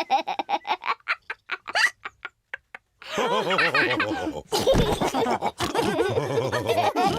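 Cartoon characters laughing. A laugh trails off into short separate sounds with near pauses, then several voices laugh together from about three seconds in.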